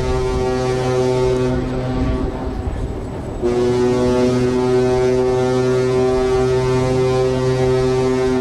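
Cruise ship's steam-style whistle horn sounding long, deep blasts rich in overtones: one blast dies away about a second and a half in, and the next starts sharply about three and a half seconds in and holds steady.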